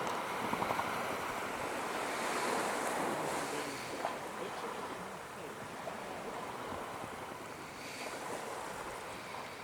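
Ocean surf washing on the shore with wind buffeting the microphone, swelling a couple of seconds in and then easing off.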